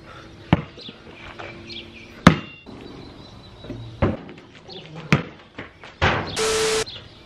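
A basketball knocking as it is shot at an outdoor hoop with a plywood backboard and metal rim, bouncing and striking: about five sharp knocks a second or so apart, the loudest about two seconds in. A brief burst of hiss near the end.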